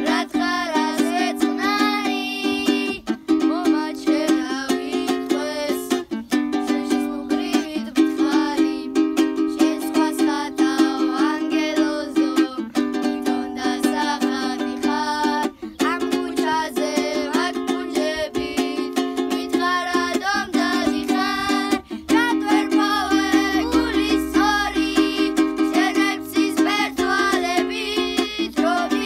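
Two children, a girl and a boy, singing a song together while the girl strums a panduri in a steady rhythm.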